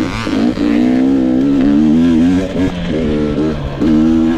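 2022 GasGas EX 250 two-stroke dirt bike engine running under throttle at a fairly steady pitch, with a few brief drops where the throttle is chopped and picked back up.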